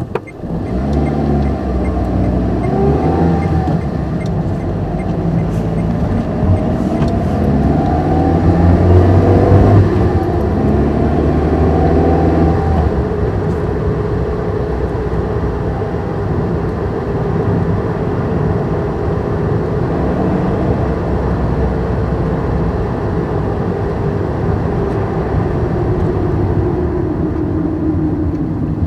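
Car engine pulling away and accelerating, its pitch climbing and dropping back several times in the first dozen seconds as it goes up through the gears. It then settles into a steady cruise with engine and road noise, the tone sinking slowly near the end.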